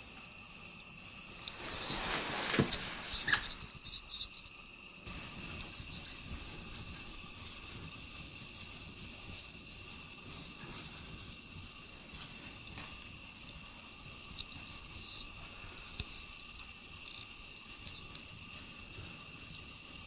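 A cat clawing and pawing at a wall of packed snow: soft, irregular scratching and crunching ticks over a steady hiss, a little louder in the first few seconds.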